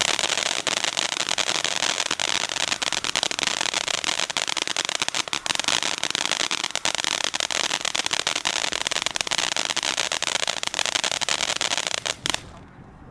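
'Dancing With Ghost' ground firework fountain spraying sparks with a dense, rapid crackle over a hiss. It starts abruptly and stops sharply about twelve seconds in.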